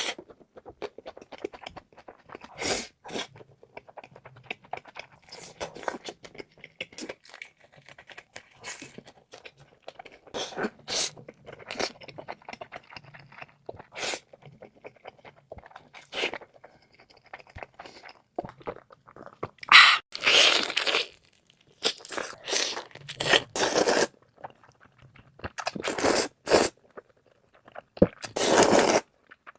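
Close-miked eating: chewing and crunching with irregular crackly bites, growing louder and denser in the last third.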